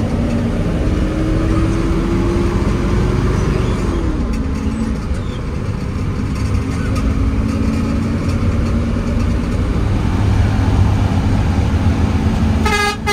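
Hino AK8 bus driving on the road. The engine note climbs over the first few seconds and drops about four seconds in at a gear change, then runs steady. A horn sounds briefly near the end.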